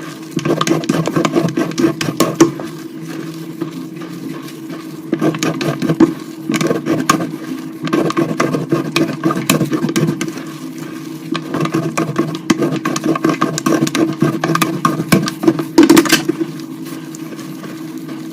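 Heart-shaped blocks of coloured gym chalk being broken and crushed, a dense crunchy crackling that comes in bursts with short pauses between them, over a steady low hum.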